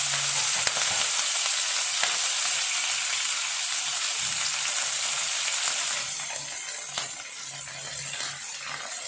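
Tempering sizzling in hot oil: mustard seeds, urad and chana dal, chillies and curry leaves frying, a steady hiss with a few sharp crackles. It eases off about six seconds in.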